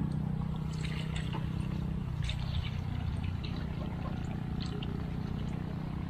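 Coconut milk pouring in a steady stream from a steel pot through a plastic strainer into a pot of chopped jackfruit, with a few light clinks. A steady low hum runs underneath.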